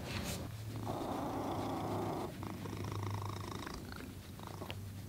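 Domestic cat purring steadily while its head is scratched.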